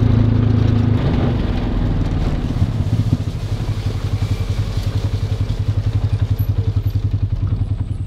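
Side-by-side utility vehicle's engine running as it drives along a dirt track, with a low hum that takes on a rapid, regular pulsing from about three seconds in.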